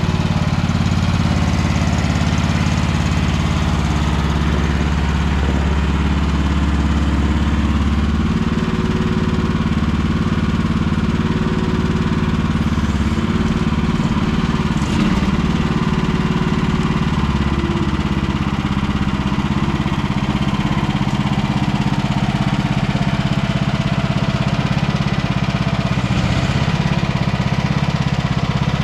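Small engine of a Chinese 1-ton mini excavator running steadily while the machine is being worked, its low tone changing about eight seconds in.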